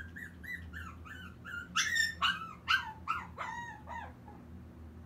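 Shih Tzu puppy whining and yelping in a quick string of short, high cries that fall in pitch. The cries are loudest in the middle and stop about four seconds in. It is a young puppy crying alone through its first night in a new home.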